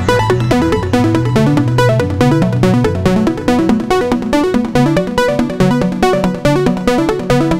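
Make Noise Eurorack modular synthesizer patch playing a fast sequence of short synth notes that step up and down in pitch, several notes a second, with the oscillator's timbre and level shifting as modulation moves them.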